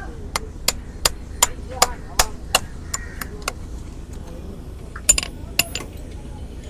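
Metal hammer striking in quick, even blows, about three a second, then a few scattered harder knocks: a farrier's hammer working on a horse's hoof.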